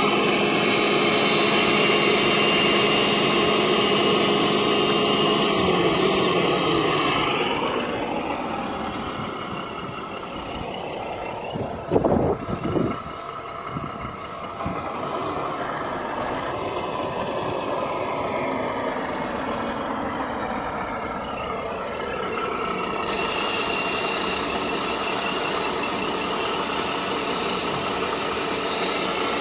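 Electric servo of a 1/14 RC dump truck whining steadily as it tips the steel bed under a full load of dirt. About twelve seconds in there is a short, loud low rumble as the load slides out of the bed.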